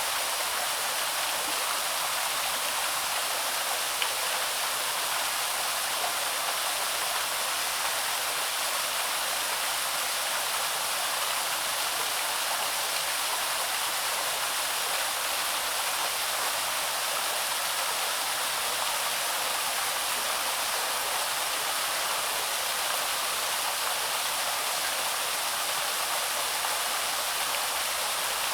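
Small waterfall on the Loch, water pouring and splashing in a steady, unbroken rush, with one faint tick about four seconds in.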